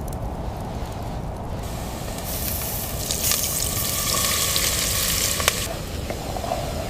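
A hot pan sizzling for about four seconds, then cutting off suddenly, with one sharp click just before it stops, over a steady low rumble.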